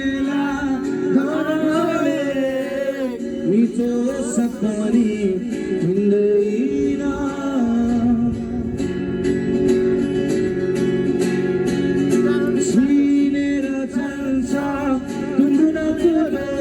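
Music: singing over a strummed guitar.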